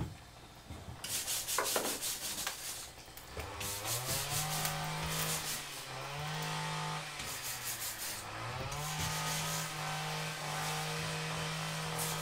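A metal hand scraper rasping against a wall in repeated strokes. About three seconds in, a louder motor-like hum starts under the scraping. Its pitch rises, dips briefly, then rises again and holds steady.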